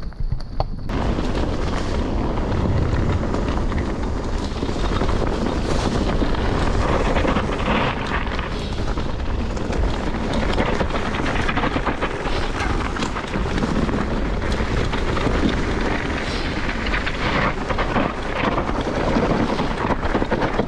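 Mountain bike riding fast down a rocky, leaf-covered dirt trail: wind buffeting the camera microphone over the crunch and rattle of tyres on stones and the bike shaking over bumps. The noise comes in suddenly about a second in and then stays loud and even.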